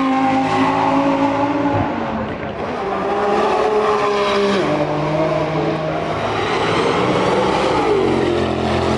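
Race car engine running hard, its pitch held steady and then jumping abruptly a few times.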